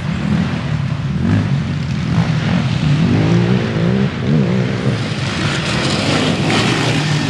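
Several racing ATV engines revving as the quads pass, their pitches rising and falling over one another, loud throughout.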